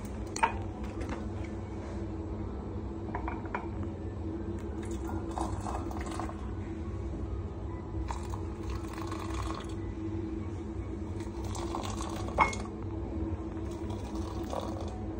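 Glassware clinking on a countertop, with two sharp clinks, one near the start and one about twelve seconds in. In between, hot water from an electric kettle pours into small drinking glasses and mugs in several short streams, over a steady low hum.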